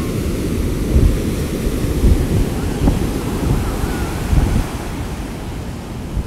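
Heavy hurricane-driven surf crashing and washing up the beach, with strong wind buffeting the microphone in irregular gusts.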